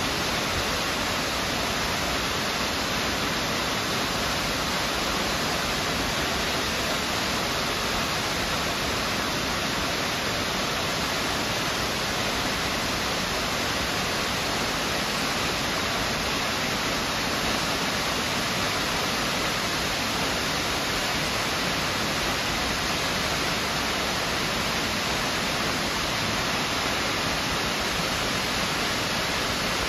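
Miners Falls, a waterfall plunging down a rock cliff onto boulders, pouring with a steady, unbroken hiss.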